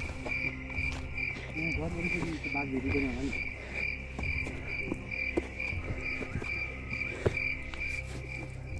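A cricket chirping steadily, a short high chirp repeated about three times a second, with faint scattered clicks underneath.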